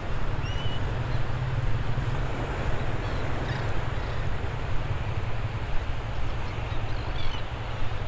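Wind rumbling on the microphone over low surf, with a few faint, short calls from the resting flock of shorebirds.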